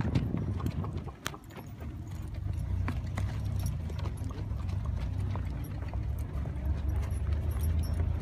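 Hoofbeats of several ridden horses on a sandy dirt track, irregular clip-clops, over a steady low rumble that grows louder from about two seconds in.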